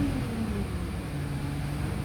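Wright Streetlite DF single-deck bus engine heard from inside the saloon: its pitch drops in the first half-second as the revs fall, then it runs steadily at lower revs over road rumble.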